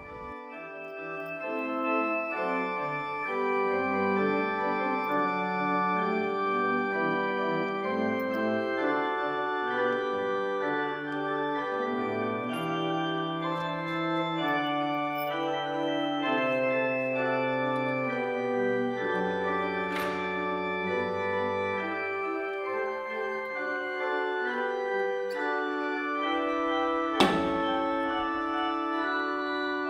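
Pipe organ playing a slow piece in sustained, changing chords over a moving bass line. Two sharp clicks cut through it, one about two-thirds of the way in and a louder one near the end.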